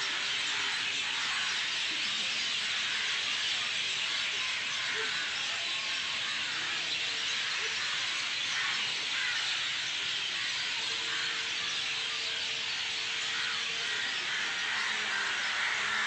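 A dense chorus of many birds chirping at once in the trees, a steady unbroken din with no single call standing out.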